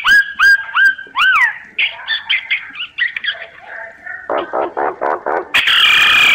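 Myna lure call: a few rising whistles, then a quick chatter of short notes and a run of lower throaty notes. A loud, harsh, rasping screech comes near the end.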